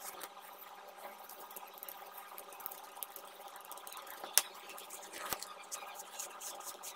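Faint scratching, rubbing and light clicks as a glass desoldering chamber is wiped with a cloth and brushed clean, with one sharper click a little after four seconds in, over a faint steady hum.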